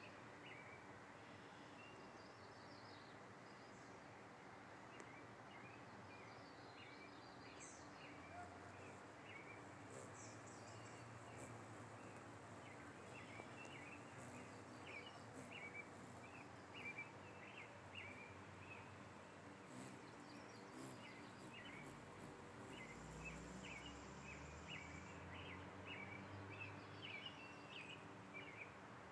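Faint birdsong: many short, rapid chirps from small birds in the trees, growing busier from about a third of the way in, over a quiet outdoor background with a low rumble near the end.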